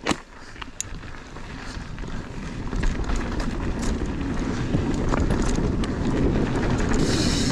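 Mountain bike rolling fast down a dry dirt trail: tyre noise on dirt and gravel with light clicks and rattles from the bike, and wind on the microphone, getting louder as speed builds. A sharp knock right at the start, and a hiss rising near the end.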